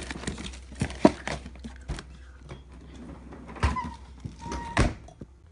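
A few sharp knocks and thumps as a freezer door that will not close is pushed and shoved shut, over a steady low hum.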